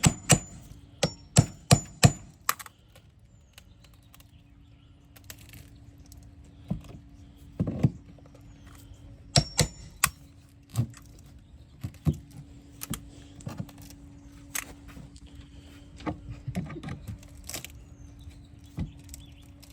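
Siding being pried and pulled loose by hand: irregular sharp clicks, snaps and knocks of the panels and tools, some pieces cracking as they come away. A faint steady hum runs underneath from a few seconds in.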